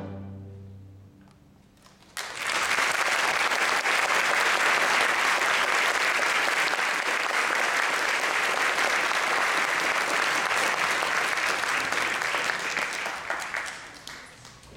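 An orchestra's last chord dies away, then audience applause breaks out about two seconds in, runs steadily, and fades out near the end.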